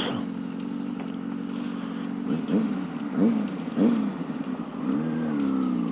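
Motorcycle engine running steadily under way, with the revs briefly rising and falling three times in quick succession about two to four seconds in, then a smooth swell in engine pitch near the end.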